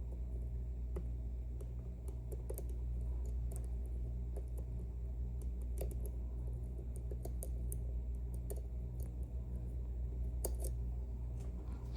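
Small metallic clicks and ticks of a lock pick and tension wrench working the sliders inside an Ezcurra C23 slider lock, irregular and scattered, a few louder than the rest. They sit over a steady low hum.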